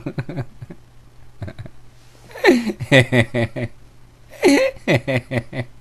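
Only speech: a man's voice talking in short phrases with pauses between them.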